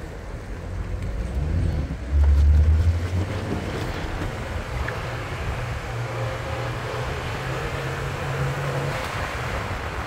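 Wind buffeting the microphone in low rumbling gusts, the strongest about two seconds in, over a steady rushing hiss that grows fuller after about four seconds.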